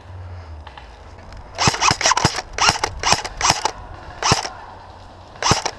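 Airsoft guns firing single shots: a quick, irregular string of about nine sharp pops starting about one and a half seconds in, then one more shot near the end.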